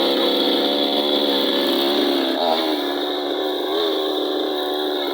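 Chainsaw engine running at a steady pitch, which dips and recovers briefly twice in the second half.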